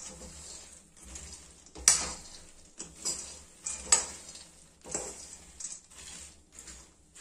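Metal spoon stirring peanuts dry-roasting in a metal kadhai: repeated scraping strokes about once a second, the nuts rattling and rustling against the pan. The stirring stops near the end.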